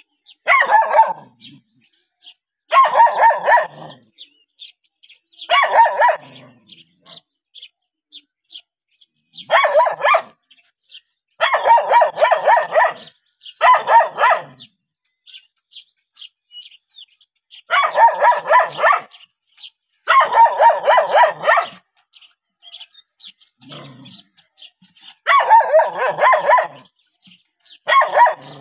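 A young dog barks again and again in long, howl-like calls, each about a second long, coming every two to four seconds. Faint bird chirps come in the gaps.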